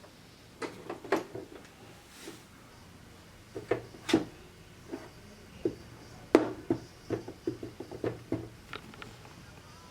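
Plastic parts of a Casio SA-75 keyboard being handled, giving a string of irregular knocks and clicks, several close together in the second half.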